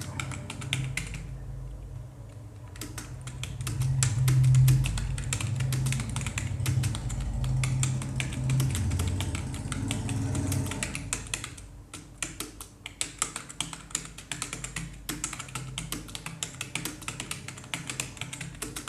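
Typing on a computer keyboard at a slow, even pace: a steady stream of key clicks with a brief pause about a second in. A low hum sits under the first half and fades out around the middle.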